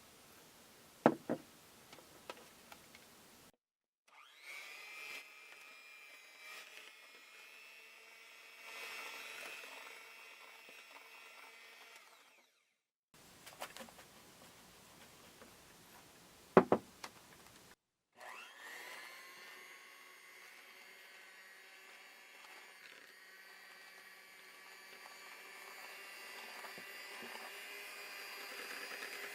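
A small electric kitchen appliance motor running steadily with a whine, in two long stretches. Each stretch is preceded by a sharp knock, at about one second in and again past halfway.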